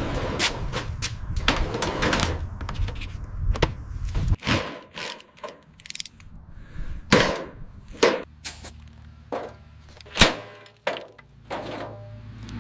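A string of sharp knocks, clunks and bangs, a few a second, over a low rumble that drops out about four seconds in and returns later, typical of hands-on work on a car body.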